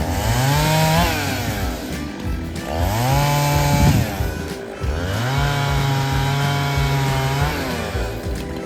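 Chainsaw revved up to full throttle three times, each rise followed by a fall back toward idle. The last run is held high for about two seconds, as in a cut.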